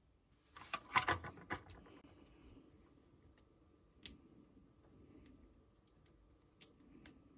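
Light plastic clicks and rattles from handling a small 1/24-scale RC crawler truck: a clatter of small clicks about a second in, then two single sharp clicks later on.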